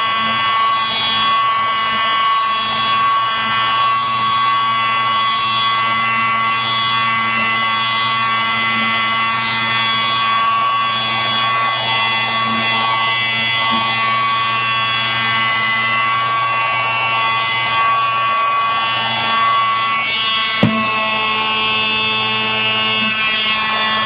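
Small battery-powered (4×AA) handheld car vacuum cleaner running, its motor giving a steady, even whine, with a single click near the end.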